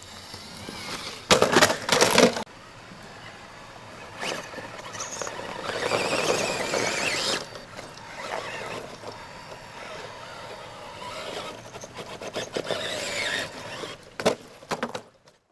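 Scale RC crawler's electric motor and gearbox whining unevenly as it is driven up a steep dirt bank, with two loud bursts of noise between one and two and a half seconds in. The sound cuts off abruptly near the end.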